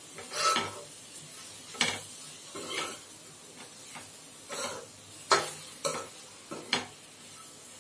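A metal spoon scraping and clinking against a steel kadai as chopped tomatoes and spice powders are stirred in hot oil, about seven strokes at uneven intervals. Under it runs a low, steady sizzle of the tomato masala frying.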